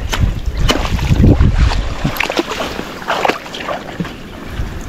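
Shallow swamp water splashing and sloshing as people wade and work through a thicket, with scattered snaps and knocks, louder in the first half.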